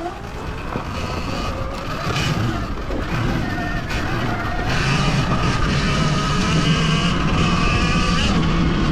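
Sur-Ron Ultra Bee electric dirt bike riding along, its motor whining over wind and trail noise, getting louder about halfway through.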